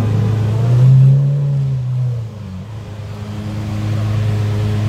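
Lamborghini Aventador's V12 engine idling with a steady low note. About a second in, a short blip of the throttle briefly raises the pitch, then the engine settles back to idle.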